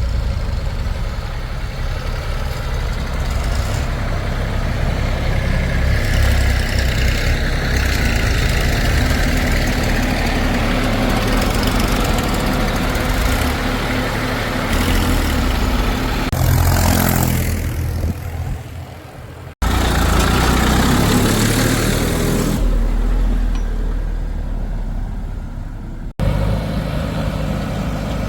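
Diesel engine of heavy machinery running steadily under work, its sound breaking off abruptly twice in the later part where the footage is cut.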